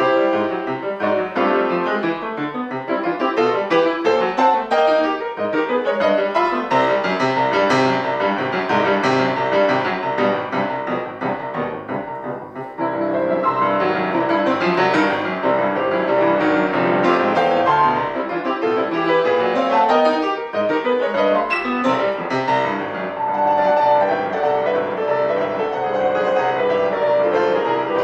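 Grand piano played solo: a dense, fast-moving classical passage with many notes sounding at once, dipping briefly in loudness about halfway through before resuming at full strength.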